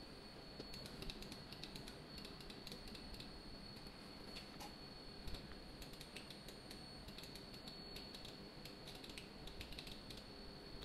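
Faint, irregular clicking of computer keys being pressed, over a steady high-pitched whine.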